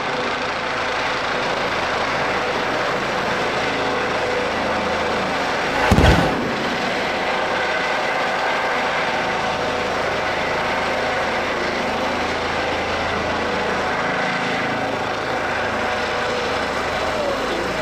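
Eurocopter helicopter hovering low overhead: steady rotor and turbine noise. A loud explosive bang about six seconds in, from a pyrotechnic charge set off for the show's finale.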